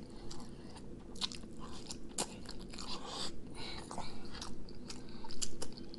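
Close-miked eating sounds: a person biting and chewing crunchy food, with irregular crackly crunches and smacks throughout.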